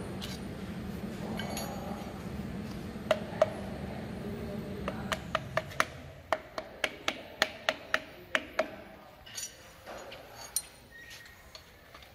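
Light repeated taps of a hammer on a piston crown, driving the piston through a ring compressor into an engine cylinder bore. Each tap gives a short metallic clink with a brief ring, about two taps a second, starting about three seconds in and dying out about ten seconds in.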